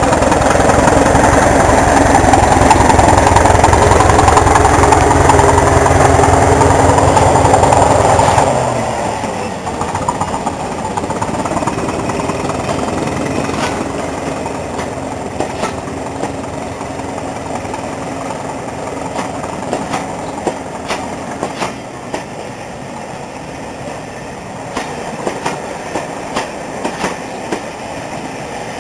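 Hastings diesel-electric multiple unit 'Thumper' passing close by: its English Electric diesel power car thumps loudly for about eight seconds, then drops away. The trailing coaches roll past with wheel clicks over the rail joints.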